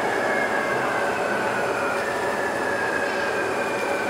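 A New Taipei Circular Line metro train heard from inside the car: a steady running rumble with a motor whine that slowly falls in pitch as the train slows toward a station.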